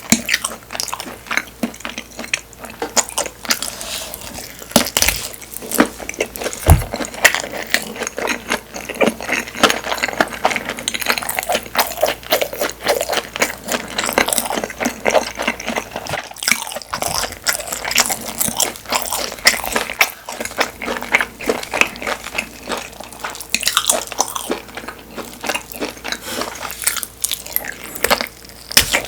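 Close-miked chewing and biting of Korean blood sausage (sundae): dense, irregular wet mouth clicks and smacks. Two short low thumps come about five and seven seconds in.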